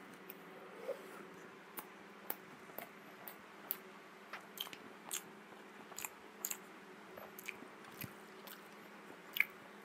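Close-miked chewing of spicy instant noodles: soft, wet mouth clicks and smacks at an uneven pace, about one or two a second, with one sharper click near the end.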